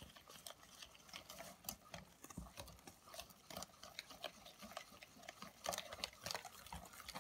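Wire whisk beating pancake batter in a stainless steel bowl: faint, quick, irregular clicks and scrapes of the wires against the metal.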